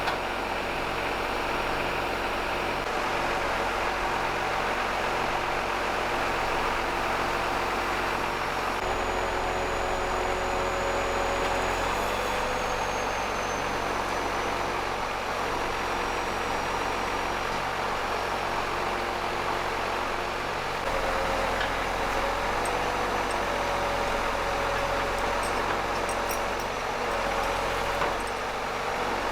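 Delivery truck's engine running steadily, with a regular low pulse and a steady whine. The sound jumps abruptly in character a few times.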